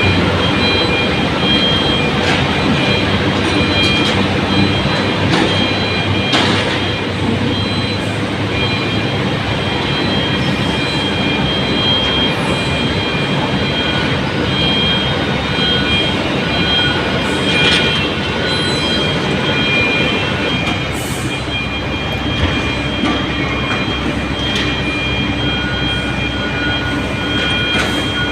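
Small 75C excavator running steadily as it tracks uphill, its engine and tracks making a continuous rumble. High, steady squealing tones come and go, with occasional clanks.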